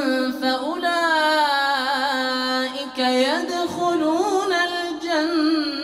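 A man's voice reciting the Quran in the melodic chanted style, drawing a verse ending out into long held notes that bend and turn in ornamented waves. There is a brief dip about three seconds in, then the line picks up again.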